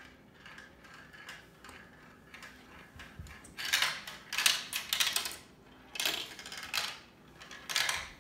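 Marbles clattering and clicking down the tracks of a plastic marble-run tower, in three loud rattling runs in the second half after some faint ticking.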